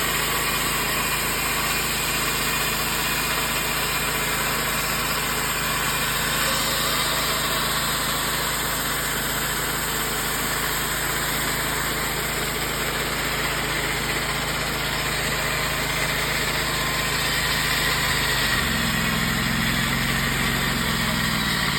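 Portable band sawmill running steadily on its Subaru Robin gas engine while sawing a cant into a board. About three seconds before the end, the engine note changes and falls.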